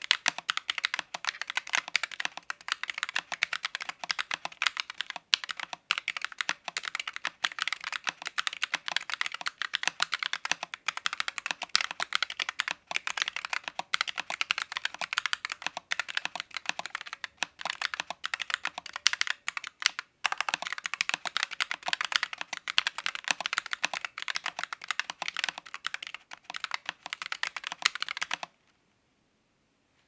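Continuous typing on a Royal Kludge RK Round mechanical keyboard with stock pre-lubed RK Pink switches and round typewriter-style keycaps: a dense, quick clatter of key presses, with a short pause about two-thirds of the way through. It stops near the end.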